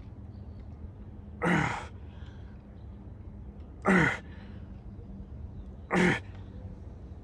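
A man's forceful, breathy exhalations, three of them about two seconds apart, each ending in a short falling grunt: the effort of straining through slow tricep reps against a heavy resistance band.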